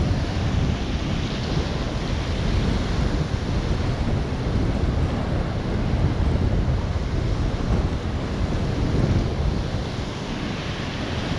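Sea surf breaking and washing over flat shore rocks, with wind buffeting the microphone.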